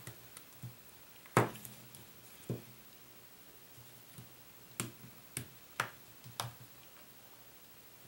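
Scattered sharp plastic clicks and snaps, about nine at irregular intervals and the loudest a little over a second in, as a plastic pry tool works around the edge of a Nexus 4's back cover and pops its clips loose.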